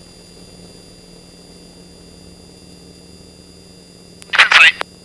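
Steady low drone of the T-28 Trojan's engine heard through the cockpit intercom, with a brief radio call cutting in about four seconds in.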